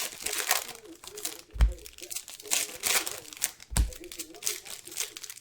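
Foil wrappers of Panini Optic football card packs crinkling and tearing as they are opened by hand, with a couple of dull low thumps along the way.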